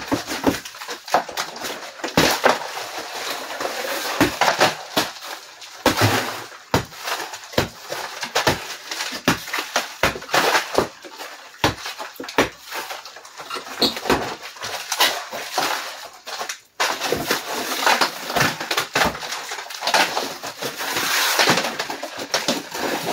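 Horsehair plaster being pried and pulled off wood lath with crowbars and hands. Chunks crack, scrape and clatter down in a steady run of irregular sharp knocks and crumbling.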